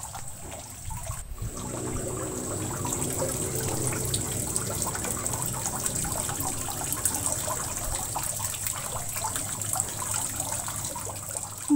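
Spiced broth with diced beef liver simmering in a frying pan, a steady fizz of small bubbles popping.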